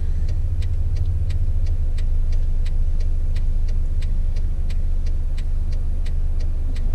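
Car standing with the engine idling, a steady low rumble inside the cabin, while the indicator relay ticks evenly about three times a second.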